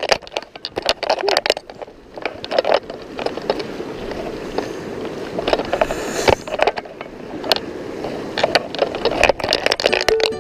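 Wading legs splashing and sloshing through shallow river rapids, with irregular close knocks and scrapes against the microphone throughout.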